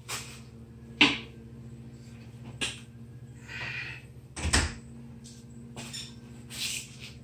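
A lifter's short, sharp breaths and exhales during a set of barbell bench press reps, one every second or so. About four and a half seconds in comes a heavier thump with a deep low end. A steady low hum runs underneath.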